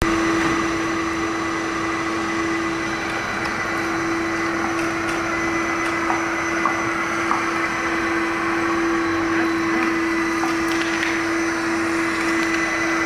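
Stainless-steel industrial drum vacuum cleaner running steadily with a constant motor whine, with a few faint clicks partway through.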